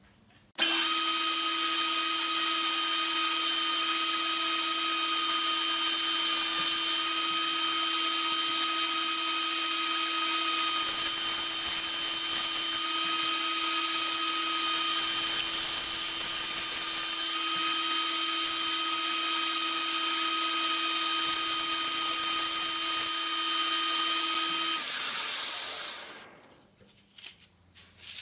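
Metal lathe starting up and running with a steady whine while taking a facing cut on an aluminium spacer held in its chuck. Near the end it is switched off and winds down.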